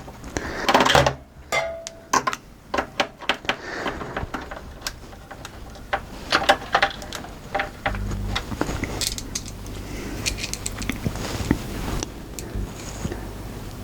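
Irregular clicks, taps and knocks of hard plastic and metal being handled. A steady low hum joins about eight seconds in.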